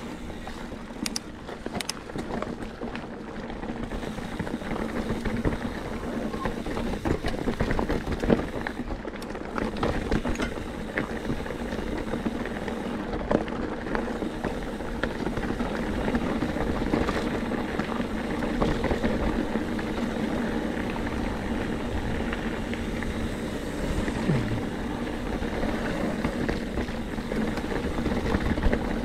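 Mountain bike being ridden over a rocky trail: a steady rumble of tyres on rock and gravel, with scattered clicks and rattles from the bike, over a steady low hum.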